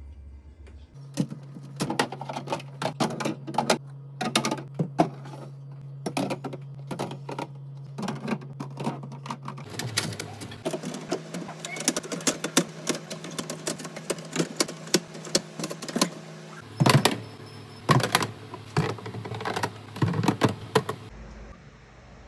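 Rapid clatter of containers and bottles being handled and set down, many quick knocks and clicks a second. A low hum underneath changes abruptly several times.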